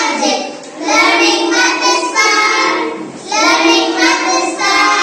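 A group of young girls singing an action song together, in phrases with short breaks about half a second in and again about three seconds in.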